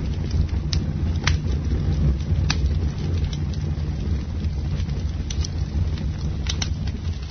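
Campfire burning: a steady low rumble of flames with scattered sharp crackles and pops of burning wood.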